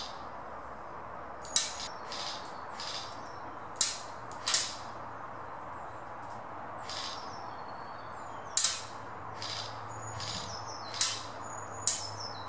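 Airsoft BBs striking a target board and the woodland around it: sharp single knocks spaced irregularly a second or more apart, about six louder ones among fainter ticks. Small birds chirp briefly in the second half.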